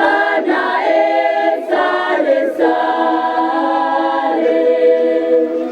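Choir singing in harmony: the voices come in together on a phrase, then hold a long sustained chord that cuts off near the end.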